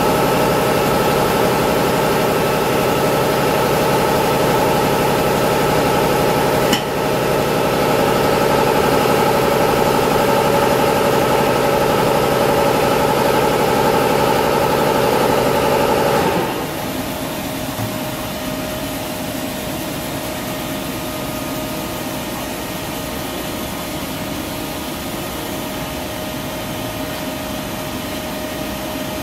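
Doosan DNM400 vertical machining center running, a steady hum with several steady tones. There is a single click about seven seconds in, and about sixteen seconds in the sound drops to a quieter steady hum.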